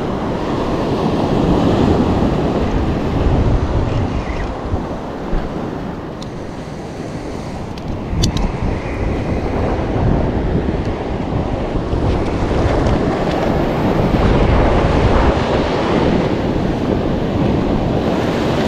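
Ocean surf breaking on a beach, with strong wind buffeting the microphone. The noise eases for a few seconds midway, then builds again.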